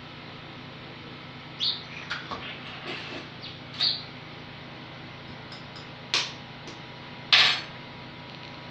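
Kitchen cup, container and teaspoon being handled: a scattering of short, sharp taps and clinks, the loudest near the end.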